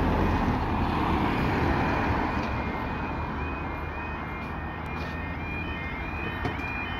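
A car passing over the level crossing, its noise fading over the first two seconds. From about two seconds in, the crossing's electronic warning alarm sounds as a repeating rising-and-falling tone, marking the start of the barrier-lowering sequence.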